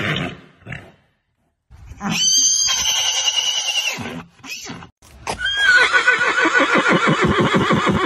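Horse neighing: the tail of one call, then a neigh about two seconds in, then a long whinny from about five seconds in with a rapid shuddering quaver.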